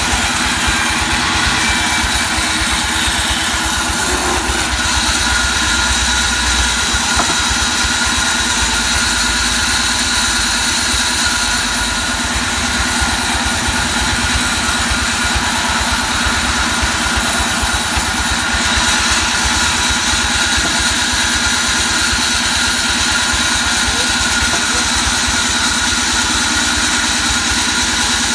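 Large band sawmill running steadily, its blade cutting lengthwise through a mahogany log, a constant loud mechanical drone with a steady whine over it.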